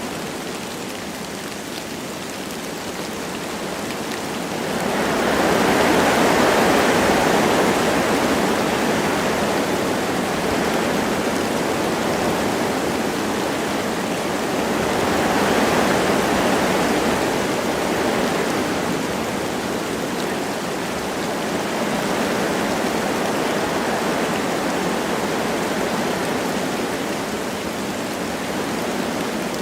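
Wind blowing through forest trees with light rain falling, a steady rushing hiss that swells in gusts about five seconds in and again around fifteen seconds.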